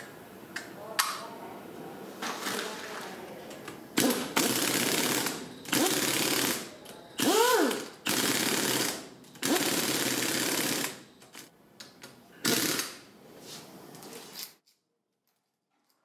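Impact wrench running down the cylinder head nuts of a 70cc motorcycle engine in several short bursts, hammering rapidly, with its motor whine rising and falling in one burst. Lighter clinks of parts being handled come before the first burst.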